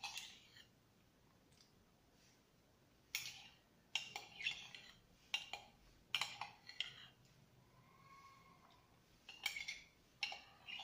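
Metal teaspoon clinking and scraping against the inside of a ceramic mug as ice cream is scooped out, in small groups of sharp clinks a second or two apart.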